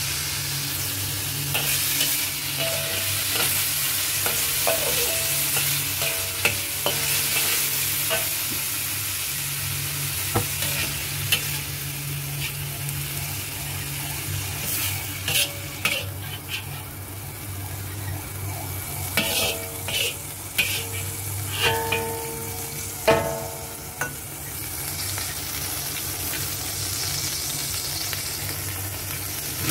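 Beef strips sizzling in hot oil in a wok, stirred with a metal spatula that scrapes and clinks against the pan now and then, most often in the second half. A steady low hum runs underneath.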